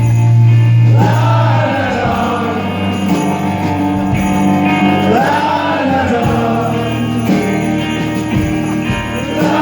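Amplified guitar playing steady chords while voices sing a wordless "la da da" refrain three times, about every four seconds: the audience singing along to the part they have just been taught.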